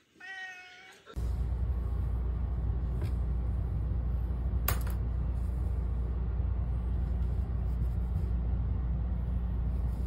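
A domestic cat meows once, briefly. About a second in, a steady low rumble starts and continues, with a single sharp click partway through.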